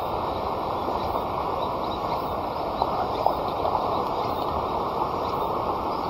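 Campfire burning with a steady rush and a few sharp crackles near the middle, while a faint high-pitched insect call repeats about once a second.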